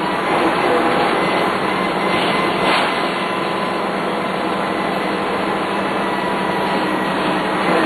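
Dennis Lance bus under way: its Cummins 6CT six-cylinder diesel running steadily with road and body noise, and a steady whine from the ZF 4HP500 automatic gearbox.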